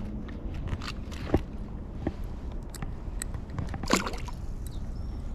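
River water rushing and sloshing under a low rumble, with a few sharp clicks or knocks, the loudest about four seconds in.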